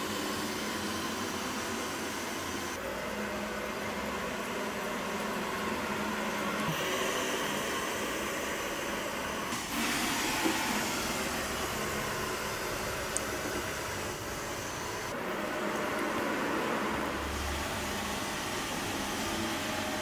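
VANiGO robot vacuum running: a steady whir of its motor and brushes, changing abruptly a few times.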